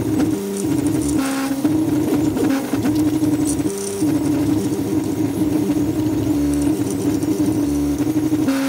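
3D printer's stepper motors whining in steady tones that jump from one pitch to another with each move of the print head and bed.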